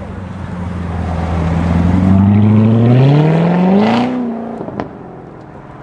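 A car engine accelerating hard, its pitch rising steadily for about four seconds, then the revs dropping away suddenly as the driver lifts off. A single sharp pop follows about a second later.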